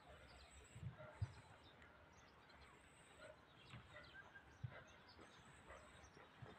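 Near silence: faint outdoor background with a few soft, short knocks and faint high chirps.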